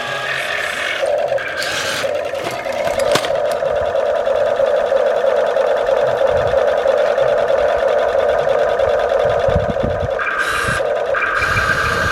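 Small electric motor and gearbox of a toy construction vehicle whining steadily; a second, higher whine comes in about ten seconds in.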